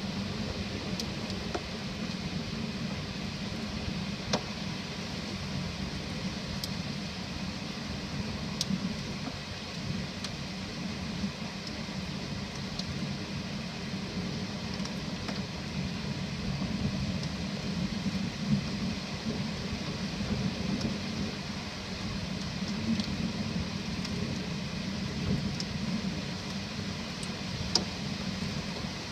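Steady rain during a thunderstorm, a constant hiss with a low rumbling undertone and scattered sharp ticks.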